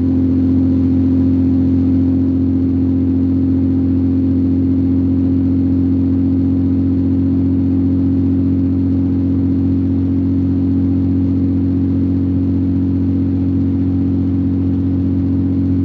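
Car cabin drone of engine and road noise while cruising steadily at highway speed: a loud, even low hum that does not change.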